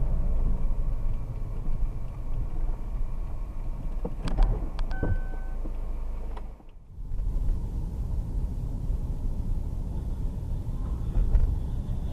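Car driving, heard from inside the cabin: a steady low rumble of engine and tyres, with a few sharp clicks and a short beep about five seconds in. The sound drops out briefly about seven seconds in, then the rumble carries on.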